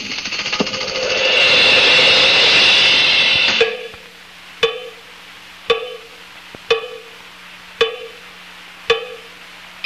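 Title-sequence soundtrack of a 1970s educational film: a loud noisy wash that builds over the first second and cuts off about three and a half seconds in, followed by six sharp percussion strikes about a second apart, each ringing briefly, over a faint steady hum.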